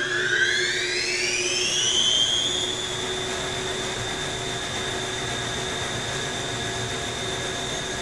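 Wascomat commercial front-load washer's drum motor rising in pitch over about two seconds as the drum speeds up after the drain pause, then holding a steady high whine over a low hum.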